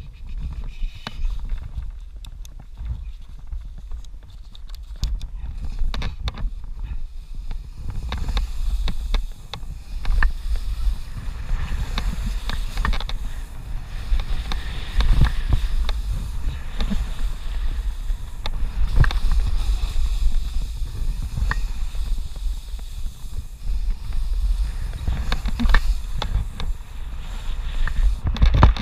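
Wind buffeting an action camera's microphone while snowboarding downhill, with the board scraping and hissing over the snow and occasional knocks as it hits bumps. The noise grows louder about eight seconds in as the rider picks up speed.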